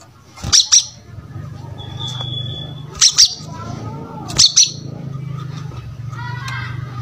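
Brown-throated sunbird calling: three loud, sharp double chirps, each two quick notes, a couple of seconds apart, with a short thin whistle between the first two, over a low steady hum.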